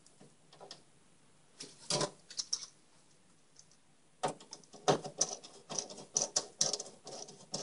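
Small metal PC-case screws clicking and rattling as they are handled and fitted while a motherboard is mounted. A few light clicks come about two seconds in, then a dense run of clicks and rattles from about four seconds in.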